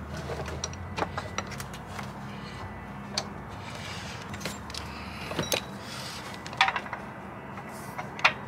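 Scattered light clicks and clinks of hands, rubber belt and metal as a serpentine belt is fed onto an engine's pulleys, with a few sharper metallic clinks later on and a steady low hum beneath.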